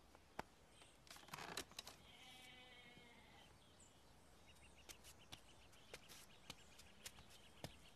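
Quiet room ambience with a faint, distant bleat about two seconds in, and scattered light knocks and clicks through the second half.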